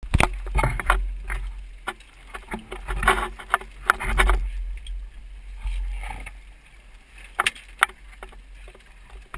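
Clicks and knocks of a handheld camera and dive gear being handled on a rigid inflatable dive boat, over a low rumble of wind and sea on the microphone that swells in gusts. Two sharp knocks come near the end.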